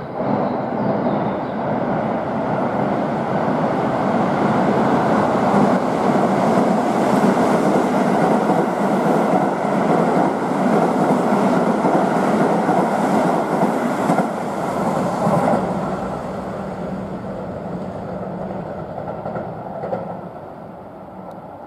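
Keihan 3000 series electric train passing through the station at speed: a loud rolling rumble of wheels on rail comes up as it reaches the platform, holds for about fifteen seconds, then dies away as it leaves.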